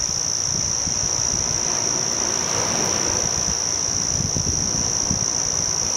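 Insects droning: one steady, unbroken high-pitched buzz, with a low, uneven rumble underneath.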